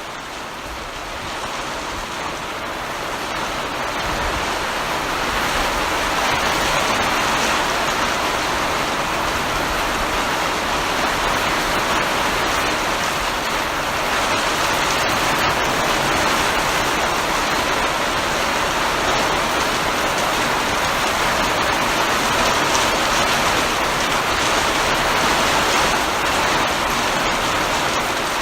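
Heavy rain falling as a steady, dense hiss, fading in over the first few seconds and then holding even.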